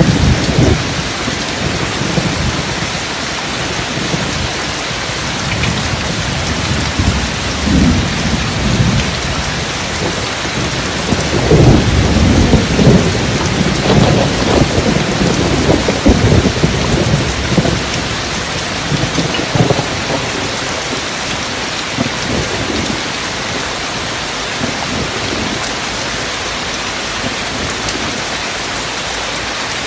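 Steady rain with deep thunder rumbling in and out: a long roll swells about twelve to sixteen seconds in. The last third is rain alone.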